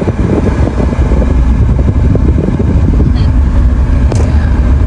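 Steady low rumble of a moving road vehicle, with engine and road noise and a few light knocks.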